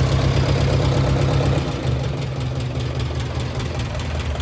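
Freshly rebuilt Ford tractor engine (new sleeves, pistons and valves) running steadily just after starting, a little quieter from about two seconds in.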